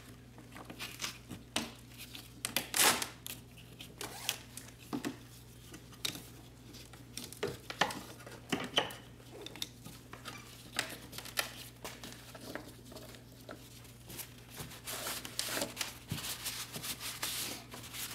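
Gloved hands handling the plastic top of a fuel pump assembly and its fuel lines and wiping them with a shop towel: irregular rustling and crinkling with light clicks and knocks, the sharpest about three seconds in.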